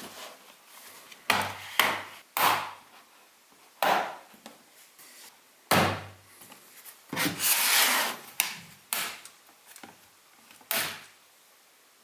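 Snap-fit clips of a Dell Inspiron 15 7501's aluminium bottom cover popping loose one after another as the panel is pried off: a series of sharp snaps, with a longer scraping rub about seven seconds in.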